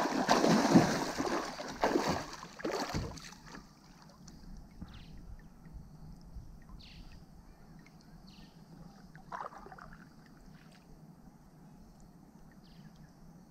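Loud splashing of river water for about three seconds as a swimmer ducks under beside the kayak, then quieter water with a few small splashes and ticks, one slightly louder splash a little after nine seconds.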